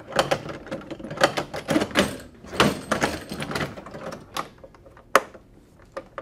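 Irregular metallic clicks and clacks from a Flexco XP staple fastener installation tool being worked on its steel guide to set the first staple hinged fastener into a rubber conveyor belt.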